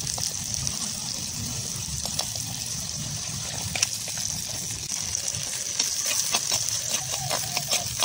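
Hot oil sizzling steadily in a clay pot over a wood fire, first with chopped onions frying and then with chopped okra added. From about six seconds in, a slotted metal spoon stirs the pot with a run of sharp clicks and scrapes.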